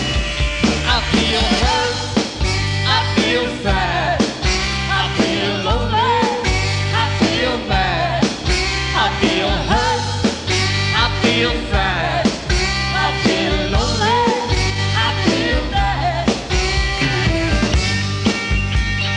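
Blues-rock band recording: a lead line with bent notes over bass and a steady drum beat, with no lyrics recognised.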